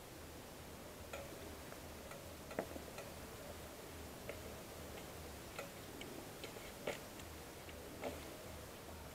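Faint, irregular small clicks and taps of hands mixing raw chicken pieces into a spice marinade on a ceramic plate, with one sharper click about two and a half seconds in.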